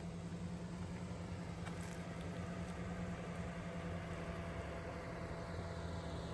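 A machine running with a steady low hum, with a few faint ticks over it.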